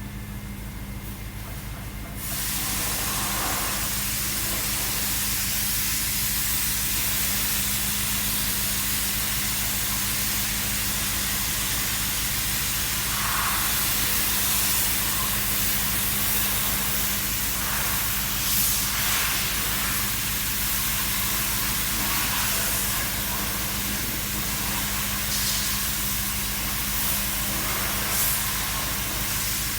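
BMW engine idling steadily, joined about two seconds in by a loud, steady hiss.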